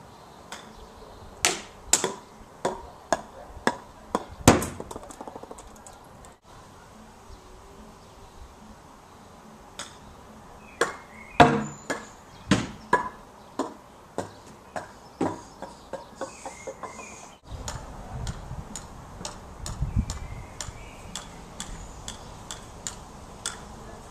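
Golf balls being chipped with a club toward a plastic laundry basket: a series of sharp clacks and knocks at irregular intervals, in several runs, the later ones fainter.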